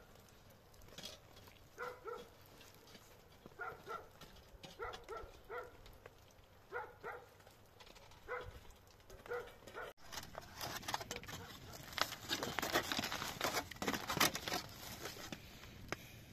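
A dog barking in short pairs of barks, again and again for about ten seconds. After a sudden cut, a busy crackling and crunching noise takes over, loudest near the end.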